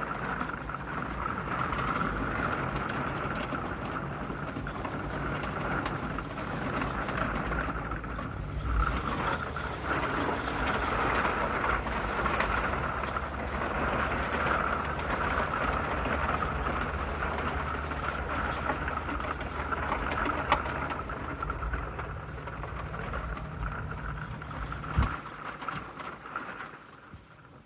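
A storm's rain and wind, a steady rushing noise. A low steady hum runs under it through the middle, and there is a single sharp knock near the end.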